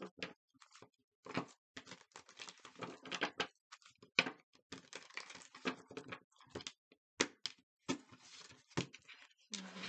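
A deck of cards being shuffled by hand: an irregular run of quick clicks, slaps and brief rustles as the cards are cut and riffled together.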